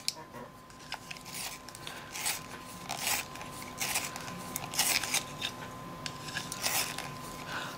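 Coloured pencil being turned in a pencil sharpener: repeated short scraping strokes, a little more than one a second, as the broken point is sharpened back.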